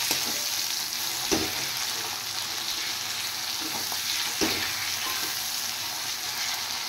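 Chopped onion, garlic, ginger, tomato and green chillies sizzling in hot oil in a steel wok as a metal spatula stirs them, the spatula knocking against the pan twice.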